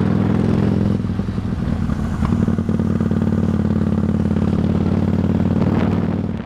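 Kawasaki VN800 V-twin motorcycle engine running steadily, with a few light clicks, fading out near the end.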